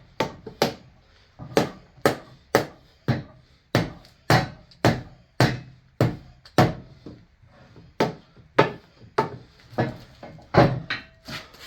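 Hammer blows struck over and over on a Parker 600 vise to knock its heavy movable jaw loose: about twenty sharp strikes, roughly two a second.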